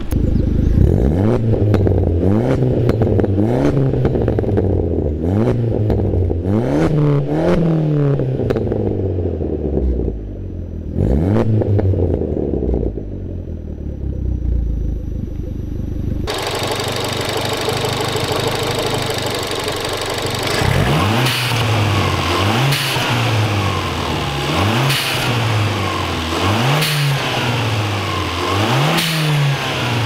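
Remapped turbocharged four-cylinder engine of an Alfa Romeo MiTo revved at standstill in repeated blips, each rising and falling, with a short stretch of idle between them. It is heard first from the cabin. About halfway through it switches to the exhaust note from behind the car, with a blip about every two seconds.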